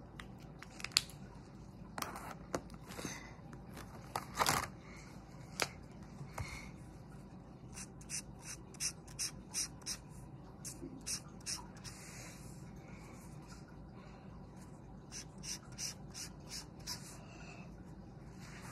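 Felt-tip marker scratching on paper in runs of quick back-and-forth colouring strokes, about two or three a second. There is a sharp tap about a second in.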